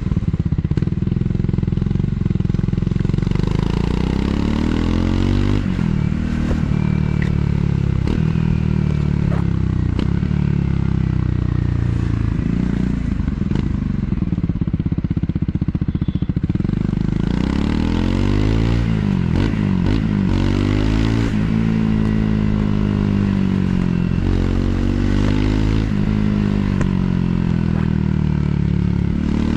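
Triumph Scrambler 400 X's single-cylinder engine through its stock exhaust, pitch climbing and dropping back again and again as the rider accelerates, shifts and backs off. Wind noise rushes over the microphone.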